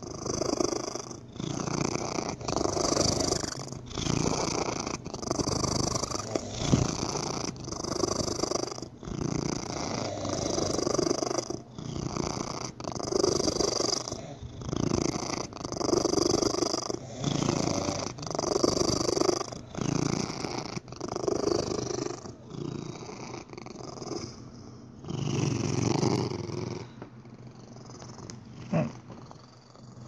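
Domestic cat purring, each breath in and out heard as a rhythmic cycle about once a second with a breathy hiss; the owner wonders whether it is a sign of a breathing problem. The purring grows quieter over the last few seconds.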